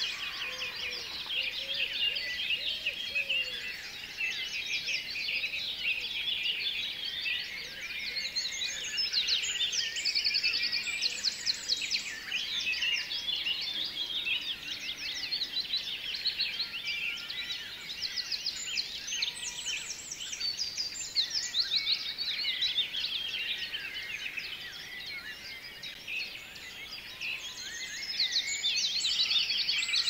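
A dense chorus of many small birds chirping and singing at once, quick high-pitched notes overlapping without a break.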